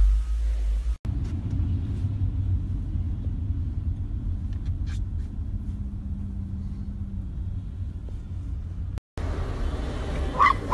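Steady low rumble of a car driving, heard inside the cabin. There are a few faint clicks, and the sound breaks off briefly about a second in and again near the end.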